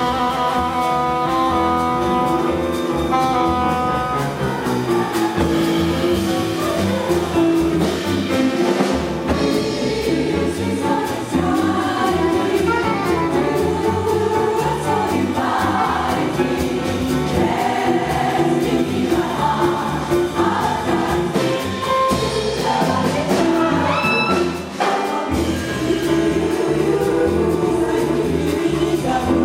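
Jazz chorus singing in harmony, backed by a small band of piano, saxophone, bass and drums.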